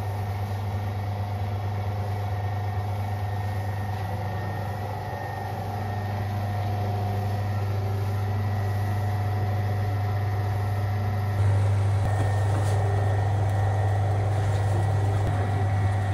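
Large electric dough mixer running with a steady low hum as its arm kneads a big batch of bread dough in the steel bowl; the hum steps slightly louder about eleven seconds in.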